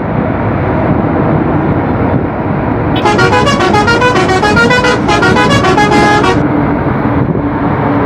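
A bus's multi-note musical horn plays a stepping tune over a steady rumble of engine and road noise. The tune starts about three seconds in, breaks briefly halfway, and stops after about three and a half seconds.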